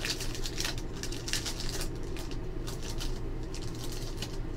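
Trading cards and their foil pack being handled and flipped through: a run of quick crinkling and sliding rustles, over a steady low electrical hum.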